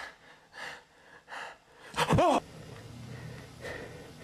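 A person breathing hard, one breath about every three quarters of a second. About two seconds in comes a short, loud voiced gasp whose pitch rises and falls.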